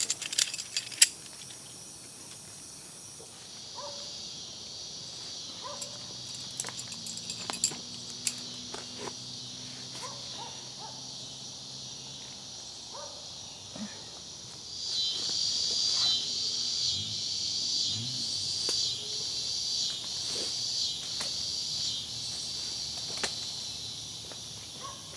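A steady, high-pitched insect chorus that grows louder and pulses from about halfway through. Over it come scattered clicks and rustles of a tarp being handled and staked down, the sharpest in the first second.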